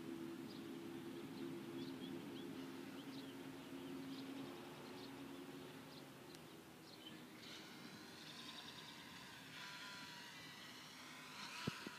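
Faint buzz of a small electric RC plane's motor and propeller in flight, steady at first, then a higher, wavering whine in the second half as it makes its landing approach. Birds chirp throughout.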